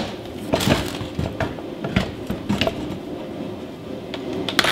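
Handling noise from a portable band saw being moved and set on its metal table stand: scattered clunks, knocks and rattles, with a sharper knock near the end. The saw is not running.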